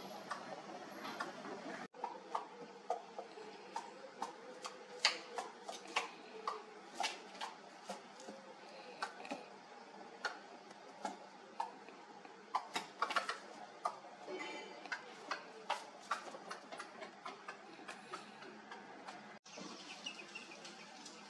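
Irregular sharp clicks and ticks, a few a second and uneven in loudness, over a faint outdoor background. The sound drops out briefly about two seconds in and again near the end.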